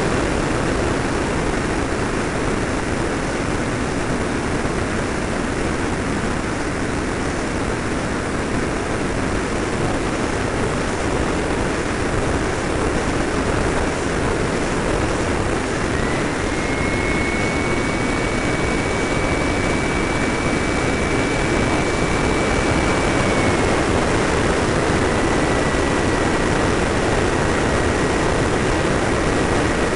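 Radio-controlled F-86 Sabre model jet in flight, heard from a camera on its canopy: a steady rush of airflow and power-unit noise. About halfway through a thin high whine rises in and holds, then steps slightly lower near the end, as the throttle changes.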